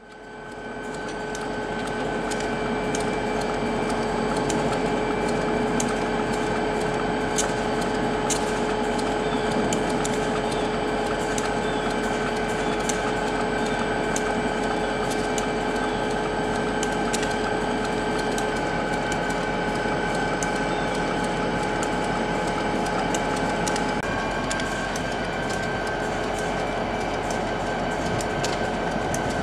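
EMD GP40PH-2 diesel locomotive's turbocharged 16-cylinder EMD 645 engine idling, a steady running sound with a held whine. About 24 seconds in, the whine changes note.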